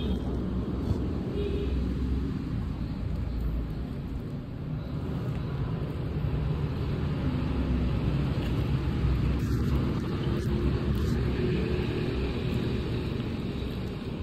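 Steady low rumbling noise.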